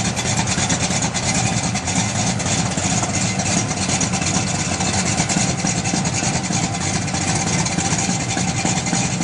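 Muscle car's V8 engine idling close by, a steady rapid pulsing rumble.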